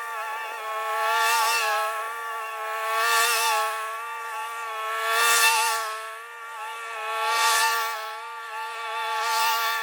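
Lawn mower engine running steadily under load, a pitched whine that swells and fades about every two seconds.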